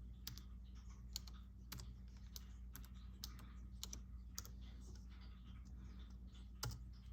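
Faint keystrokes on a computer keyboard: about a dozen irregular taps, with a louder one near the end, over a steady low hum.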